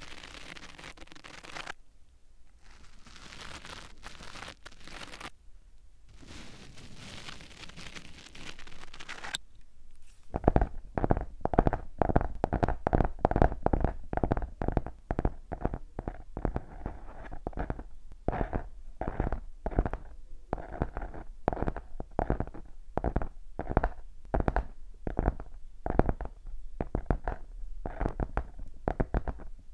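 Close-miked ASMR trigger sounds made along with plucking hand gestures. First come a few soft rustling brushes with short pauses. From about ten seconds in, quick soft plucking strokes repeat two or three times a second.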